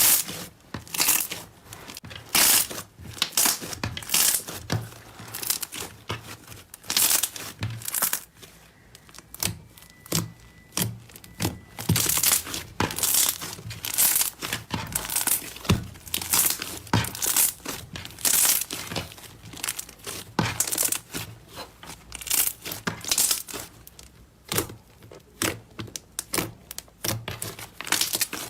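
Slime being squeezed and pulled by hand: a dense run of irregular crackling, crinkling and tearing sounds, several a second.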